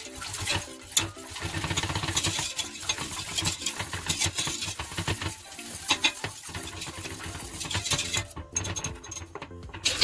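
A wire whisk and a wooden spoon stir cold water into a paste of fried tomato paste and toasted flour in a stainless steel pot. The liquid swishes, with scraping and sharp clinks against the pot's sides. The stirring noise eases off a little after eight seconds.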